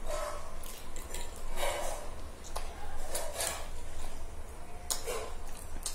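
Chicken chow mein noodles being slurped and chewed in several short bursts, with a few sharp clicks of forks against ceramic plates.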